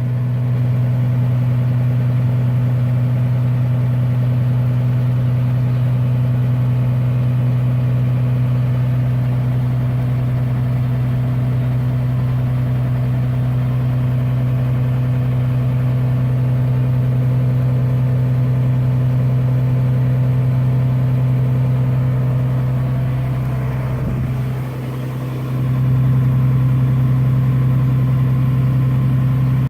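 Engine of a harvest machine running steadily with a strong low hum. About 24 seconds in it sags briefly, then picks back up.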